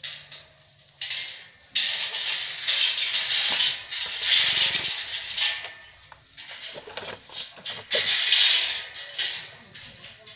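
Heavy speaker cabinets being handled: two long stretches of scraping, with knocks as they are slid and set down.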